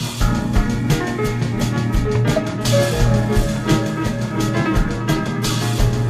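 Background music with a drum kit keeping a steady beat over sustained instrumental notes.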